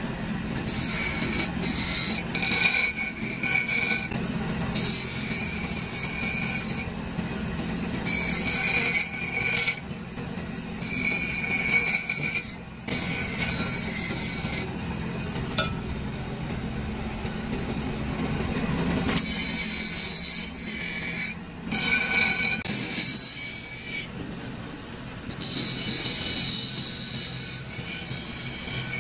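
Bench grinder running with a steady hum while cast metal fries-cutter parts are pressed against its wheel, giving repeated bursts of high, squealing grinding as each edge is ground smooth.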